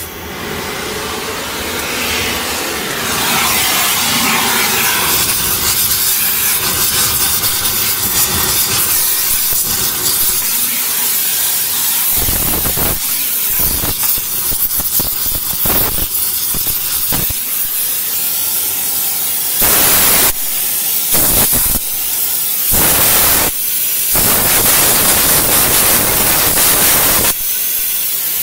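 Gas torch flame hissing steadily as it heats a crumpled steel frame rail under the car, softening the metal for pulling it straight with a chain. It gets louder in several stretches in the second half.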